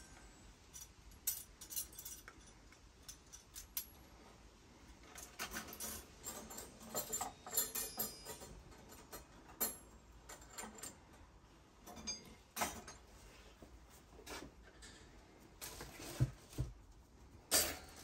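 Metal wire hanger racks and a wire basket clinking and rattling as they are handled and set down on a wooden table, in scattered light clicks and jingles, with a heavier knock near the end.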